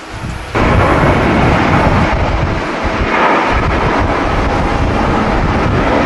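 Twin-engine jet airliner's engines at takeoff power, a loud roar that starts suddenly about half a second in and holds steady, with strong wind buffeting the microphone underneath.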